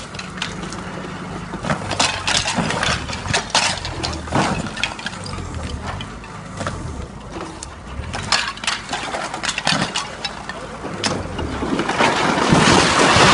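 Wheeled excavator's diesel engine running under load while its grab tears at a stone barn, with repeated sharp cracks and crashes of breaking walls and roof. About twelve seconds in, a louder, rising rushing crash as part of the building comes down.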